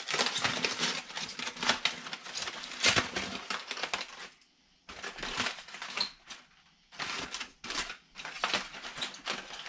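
Dense crackling and crunching as a smoked pork butt's crisp outer bark is broken and pulled apart by hand. It pauses briefly about four and a half seconds in, then resumes.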